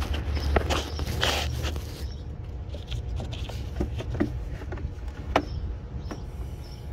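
Hands working parts in a car's engine bay: scattered small clicks, knocks and scrapes, the loudest knock about five seconds in, with low rumbling handling noise on the microphone in the first two seconds.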